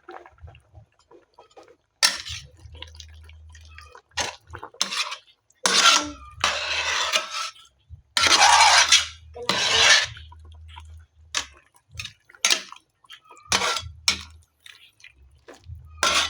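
Cooking utensils clattering and scraping against a pot and dishes. The sharp clinks and knocks come irregularly, and there are longer scraping stretches in the middle.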